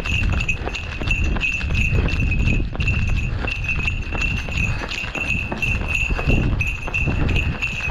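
A runner's footsteps on cobblestones at a steady running pace, heard over a low rumble of wind on a body-worn microphone, with a steady high ringing tone throughout.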